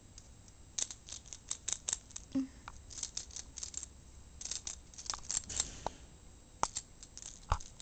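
Peach-faced lovebird's beak picking and nibbling at its toys: irregular clusters of small, sharp clicks and taps.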